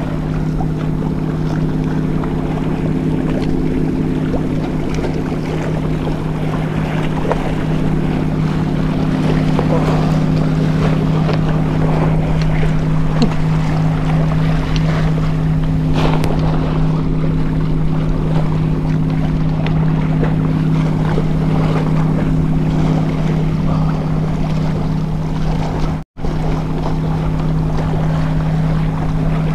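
A steady low engine hum over a haze of wind and water. It drops out for an instant near the end, and a single sharp click comes about halfway through.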